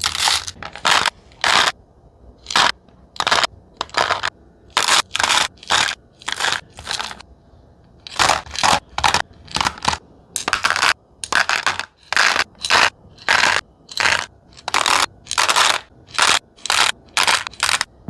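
Sweets being dropped onto a platter in quick handfuls, each a short rattling, crackling clatter, about two a second, with a short pause about seven seconds in.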